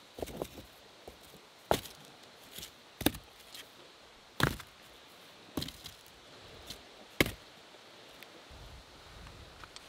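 Wood being chopped: five sharp strikes roughly a second and a half apart, with lighter knocks in between.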